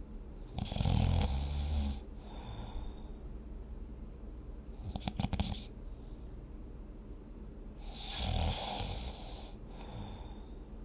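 A sleeping person snoring: two loud, deep snores about a second long, one near the start and one about eight seconds in. Between them, about five seconds in, comes a short rattling flutter.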